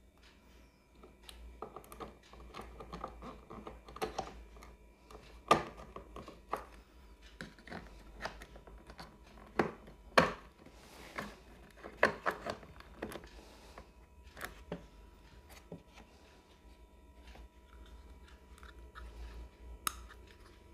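Hard plastic parts of a Napolly plastic locker cabinet being handled and pressed together: scattered clicks and knocks, with a few sharp snaps in the middle, as a plastic lock connector is fitted into place.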